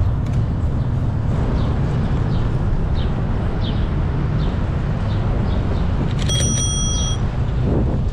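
Wind buffeting a GoPro's microphone, over road rumble, while riding a bicycle. A faint short high chirp repeats about every two-thirds of a second. A bicycle bell rings once about six seconds in.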